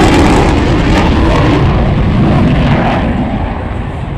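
Jet noise from a Eurofighter Typhoon FGR4's twin EJ200 turbofans, very loud at first and fading steadily as the fighter flies away, the hiss at the top dying off first and leaving a low rumble.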